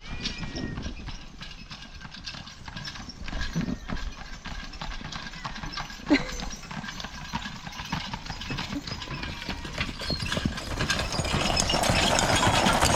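Hoofbeats of a Percheron draft-horse team going at a quick pace, with the horse-drawn cart they pull rattling along behind. The sound grows louder over the last few seconds, with one sharp knock about six seconds in.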